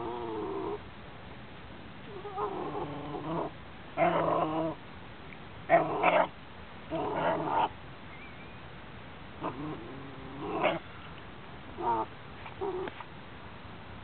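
Young Cairn Terrier vocalizing in about eight short outbursts, each a second or less, the pitch wavering within each one.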